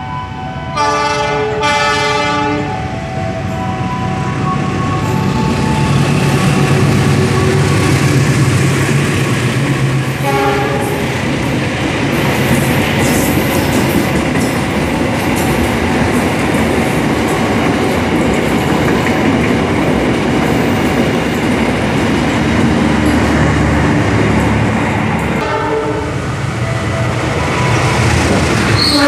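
Diesel locomotive horn sounding two short blasts as a passenger train approaches, then the train running through at speed with a steady loud rumble and rattle of wheels on rail. A short horn note comes about ten seconds in, and the horn sounds again, longer, near the end.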